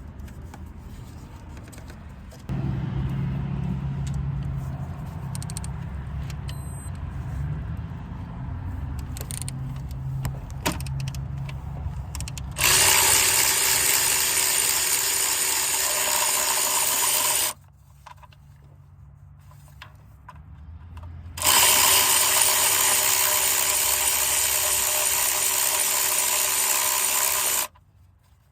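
Power tool motor running in two long, steady bursts of about five and six seconds, each stopping abruptly, over a low background rumble.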